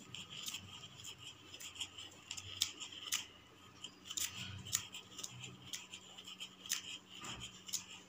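Silk thread being wound by hand around a small piece of cardboard for a tassel, the thread scraping over the cardboard's edges with irregular light ticks.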